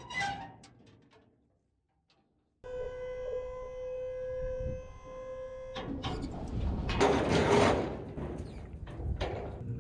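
A dump trailer unloading: a steady motor whine as the hydraulic bed tips, then a loud scraping rush as the heavy carved poplar log slides off the bed, loudest about two seconds before the end.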